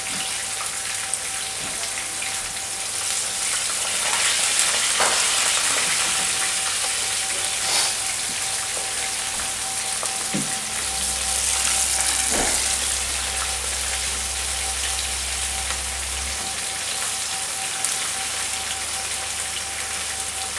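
Spoonfuls of batter frying in hot oil in a frying pan, a steady sizzle with an occasional pop.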